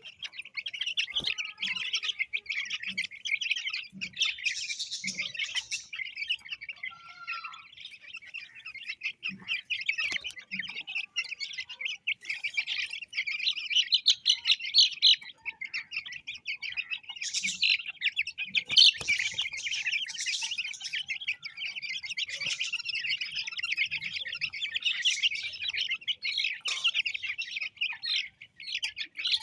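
A brood of aseel chicks peeping nonstop, many high calls overlapping.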